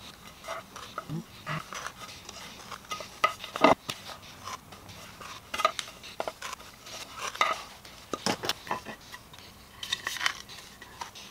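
Wooden boards and a brass wheel marking gauge handled on a workbench: scattered light knocks and clicks of wood and metal, the loudest a little under four seconds in.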